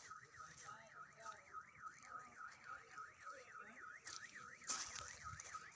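Faint electronic alarm warbling rapidly up and down, about four times a second, typical of a vehicle alarm. A short burst of noise cuts in about five seconds in.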